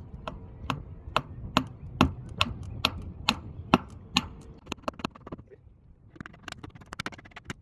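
Wooden bungs being tapped into screw holes in a wooden boat deck: a steady run of sharp taps about two and a half a second, then lighter, quicker taps, a brief pause, and another quick cluster near the end.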